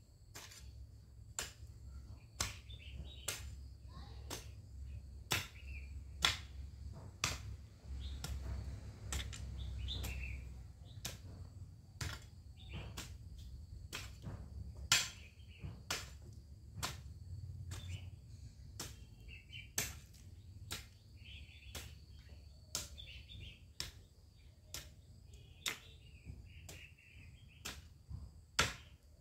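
Long-handled hoe striking dry garden soil over and over, sharp chops about one or two a second, with birds chirping and a faint steady high tone.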